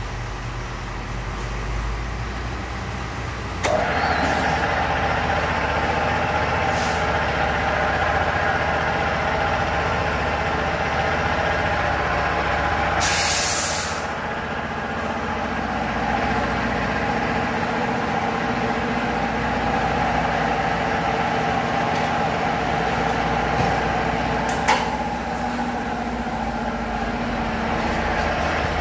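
Tire-shop machinery starts up about three and a half seconds in and runs steadily with a hum, joined by a short hiss about halfway through and a few light clicks.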